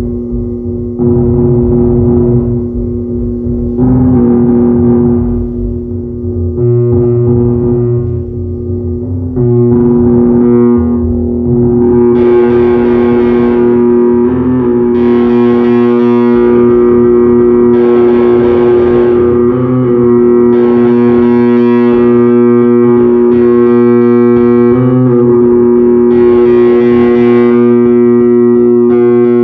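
Arturia MicroBrute analog monophonic synthesizer sounding a distorted, buzzing tone while its knobs are turned. The tone swells brighter and darker every two to three seconds, then stays bright and full from about twelve seconds in.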